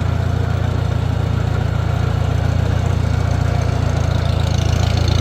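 Gasoline engine of a small '350' tractor running steadily, a low even throb that gets a little louder near the end.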